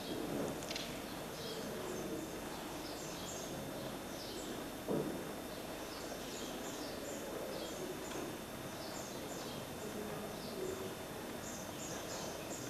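Faint bird-like chirping, many short high chirps in clusters, over a steady hiss, with a single thud about five seconds in.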